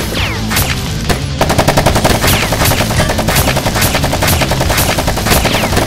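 Rapid automatic-gunfire sound effect, a fast unbroken stream of shots starting about a second and a half in, laid over background music.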